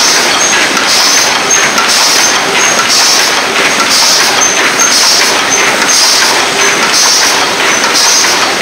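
Double wall paper cup machine running at production speed. It makes a steady mechanical clatter with a short hiss that repeats a little faster than once a second, one per machine cycle.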